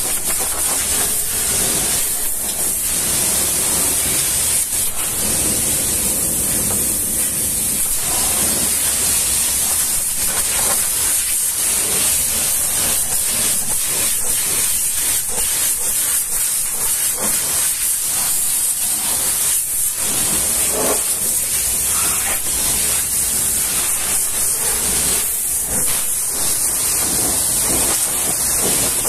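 High-pressure washer jet spraying a truck's wheel, fender and mudflap: a steady, loud hiss, strongest in the high end.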